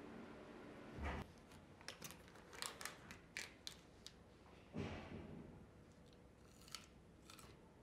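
Handling of a plastic baby-carrot snack pack: a soft thump about a second in, then a run of sharp crinkly plastic clicks, then another thump. Near the end come a few crisp crunches as a raw baby carrot is bitten.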